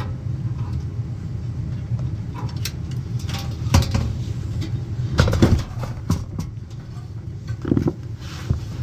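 A steady low machine hum, with a few knocks and clatters of parts being handled about four, five and eight seconds in.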